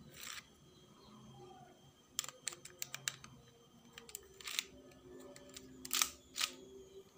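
Lego-brick model Colt 1911 pistol being worked by hand: sharp plastic clicks and clacks, with a quick run of several clicks about two seconds in and two louder clacks near the end.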